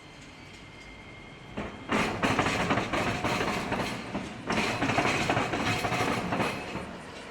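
A train passing close by, its wheels clacking over the rail joints. The noise comes in suddenly about a second and a half in, dips briefly near the middle, swells again and fades near the end.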